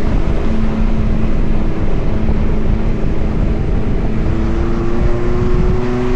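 Suzuki Jimny engine running steadily while driving, a drone over a low rumble, its pitch rising slightly about four seconds in.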